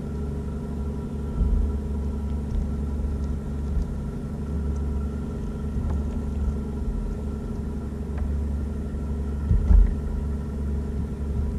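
Steady low rumble of wind buffeting the camera microphone on the open water, with a faint steady hum under it and a few dull knocks, the loudest about ten seconds in.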